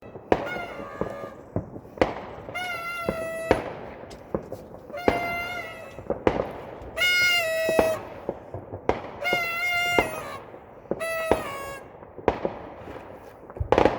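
Fireworks going off: many sharp firecracker bangs, the loudest cluster near the end. Between the bangs come about six pitched tones, each lasting up to a second.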